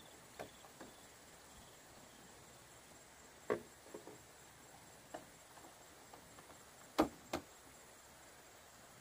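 A few scattered sharp knocks and clicks over a faint steady hiss. The loudest come as a pair about seven seconds in.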